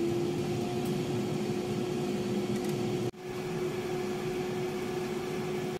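Tefal air fryer running at the start of a cooking cycle: a steady motor hum with rushing air from its fan. The sound drops out for an instant about three seconds in.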